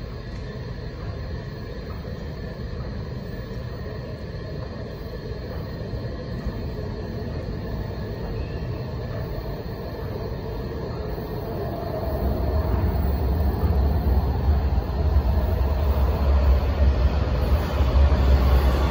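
Washington Metro Green Line train approaching through the tunnel into an underground station: a steady low rumble that swells and grows louder from about two-thirds of the way in as the train nears the platform.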